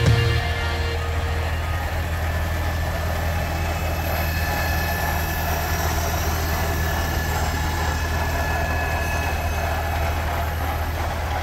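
Farmall Cub tractor's small four-cylinder flathead engine running at a steady, low speed as the tractor drives slowly by.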